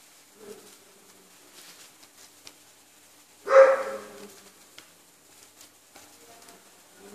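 A dog barks once, a single short loud bark about three and a half seconds in.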